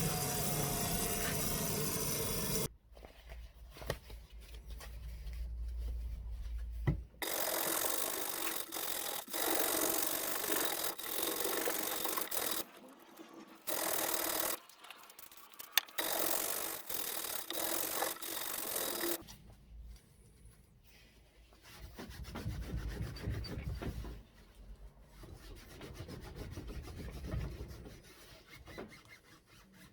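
A hand wire brush scrubbing the inside of a metal magnet clamp, in repeated bouts of scratchy strokes with short pauses. The strokes are loudest through the middle and softer near the end.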